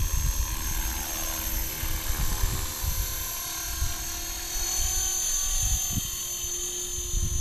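Electric 450-size RC helicopter flying low: a high-pitched whine from the motor and gears with the whirr of the rotor blades, the pitch shifting as it manoeuvres. An irregular low rumble of wind buffets the microphone.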